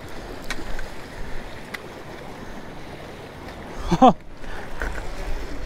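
Small waves washing and splashing against jetty rocks, with wind on the microphone and a few light clicks. About four seconds in, a short shout with a rising and falling pitch is the loudest sound.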